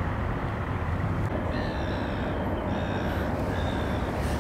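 A steady low rumble of outdoor background noise, with faint high tones coming and going in the second half.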